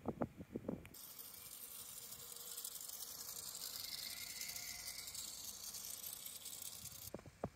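A few sharp knocks, then a steady high-pitched whirring rattle from a Walther Stabil clockwork spring motor running as it drives a small trolley along a steel rail. The whir starts and stops abruptly.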